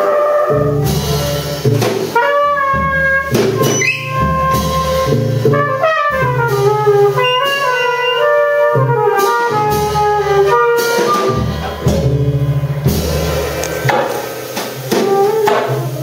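Small jazz band playing: trumpet and saxophone lines over drum kit and cymbals, the music thinning out near the end.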